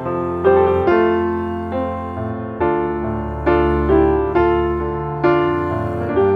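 Background music: gentle piano (electric piano timbre) playing chords, a new chord struck about once a second and left to ring.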